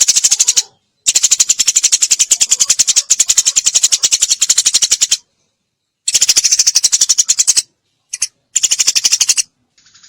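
Eurasian tree sparrow giving its rapid, rattling 'tembakan' chatter: very fast runs of sharp repeated notes in loud bursts, a long one of about four seconds and several shorter ones, with brief pauses between.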